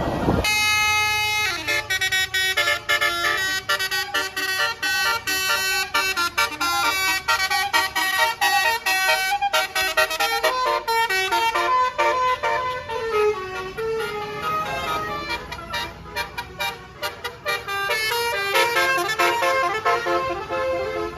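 Basuri multi-tone bus air horn playing a fast telolet melody, one pitched note stepping quickly into the next, starting abruptly just after the beginning.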